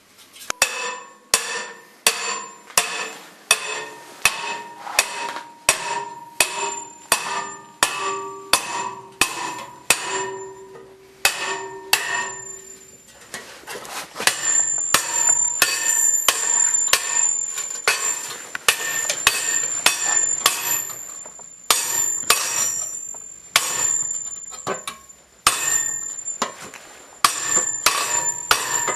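Hammer blows on a metal pipe, about two a second, each strike leaving the pipe ringing; in the second half the blows come in quicker runs over a steady high ring.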